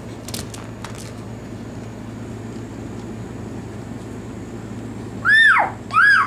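A dog whining twice near the end, two short high cries that each rise and then fall in pitch, over a steady low hum.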